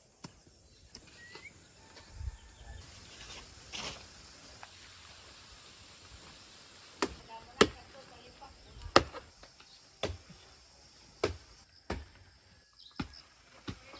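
Sharp knocks at uneven spacing, about one a second, starting about halfway through, over faint outdoor background noise.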